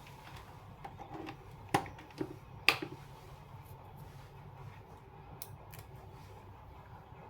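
Sharp clicks and taps of tools and wires being handled: three close together about two seconds in, then two lighter ticks later, over a steady low hum.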